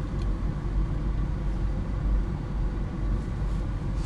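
Steady low rumble inside a parked car's cabin, its engine idling.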